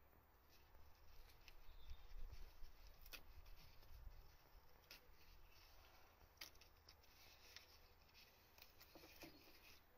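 Near silence, with a handful of faint, light clicks from hand tools working on fittings in a car's engine bay, over a faint low rumble.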